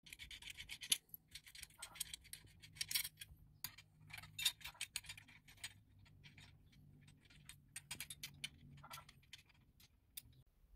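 Irregular light metallic clicks and clinks of small steel parts being handled by hand: a stainless exhaust end-pipe bracket with its bolts and springs being fitted.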